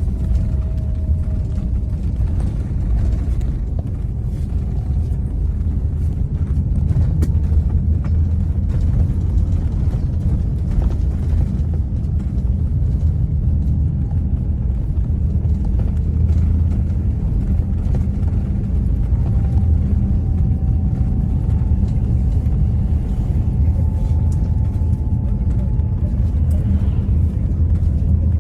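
Steady low rumble of a moving vehicle, unbroken throughout, with a faint high whine that comes in about two-thirds through.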